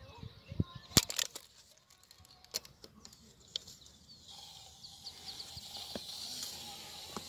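Clicks and knocks from a handheld Stanley 5 m steel tape measure, the loudest about a second in. From about halfway there is a steady high hiss with rapid light ticks as the tape blade is drawn out along a cardboard box.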